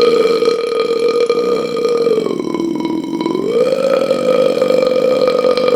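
A man's single very long, loud burp, unbroken throughout, its pitch sagging lower a little after two seconds in and climbing back about a second later.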